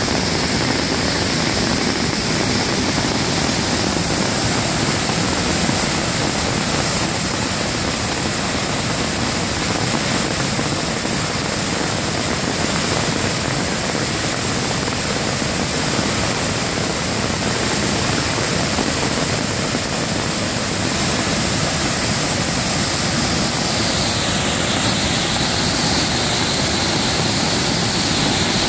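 Waterfall and stream in flash flood: a large volume of muddy storm water pouring over rock ledges and churning below, a steady unbroken rush of water.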